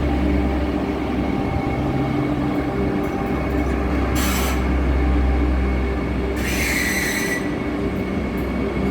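Vande Bharat Express electric train set pulling out: a steady low rumble with a motor hum. Two short high screeches cut in, one about four seconds in and a longer one about a second later.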